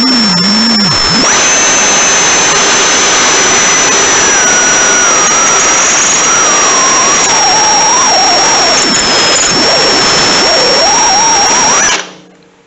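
Drill turning a spot weld cutter through a spot weld in the sheet-steel radiator support: a loud, continuous screech of metal being cut. A high whine holds steady over it, and a lower squeal drifts down and wavers. The cutting stops near the end.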